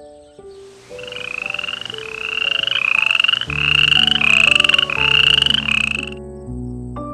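A frog calling: a quick run of short trilled calls, each rising a little in pitch, that stops about six seconds in. Soft music notes run underneath.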